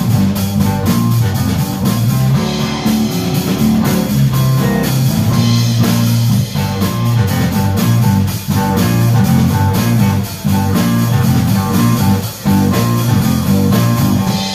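Live blues-rock band playing an instrumental passage on two electric guitars, electric bass and drum kit, with the drums keeping a steady beat.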